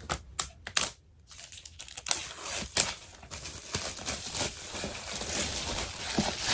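The pull tab on an iPad box's wrapping being pulled, tearing the wrap open with crinkling and rustling. A few sharp clicks come in the first second, then a steady tearing rustle builds from about a second and a half in.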